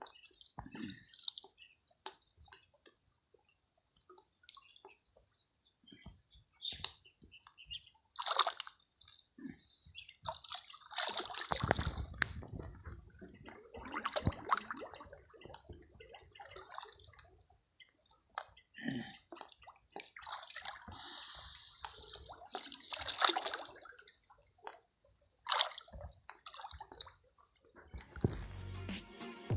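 Water splashing and dripping in irregular sloshes, with scattered small clicks. It gets busier from about ten seconds in.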